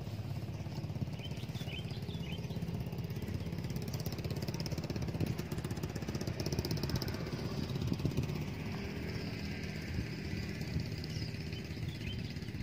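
A small engine running steadily in the background, a low even hum.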